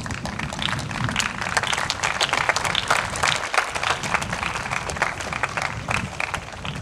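Crowd of spectators applauding, a dense patter of many hands clapping, as the players meet at the net at the end of a soft tennis match.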